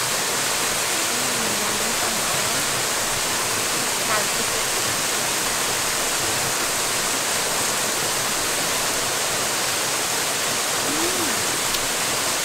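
Waterfall rushing into a river pool, a steady, even hiss of falling water.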